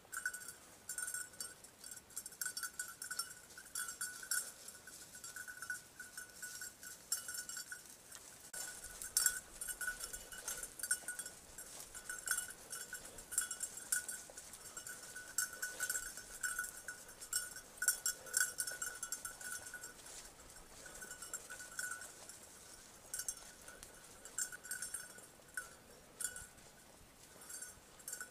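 Bell on a hunting dog's collar jingling in quick, irregular shakes as the dog moves, with only a few short pauses.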